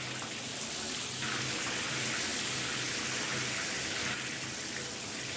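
Shower water spraying from an overhead showerhead and splashing down, a steady hiss.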